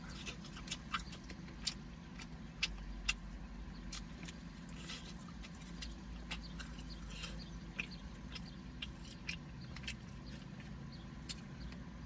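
A person chewing a mouthful of rotisserie chicken close to the microphone, with many short wet mouth clicks and smacks, over a steady low hum inside a car.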